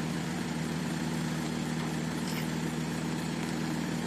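Helisport CH-7 Kompress ultralight helicopter running steadily on the ground before take-off, an even engine-and-rotor hum with no change in pitch or level.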